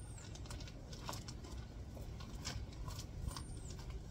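Gravel crunching and clicking as weeds are pulled out of a gravel path by hand: irregular small crunches and ticks of shifting stones over a low steady rumble.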